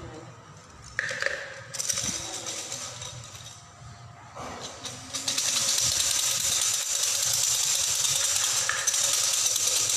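Bundle of Thai siam si fortune sticks being shaken hard in a red cylinder, a steady dense clattering of sticks from about five seconds in. Before that come a few scattered knocks.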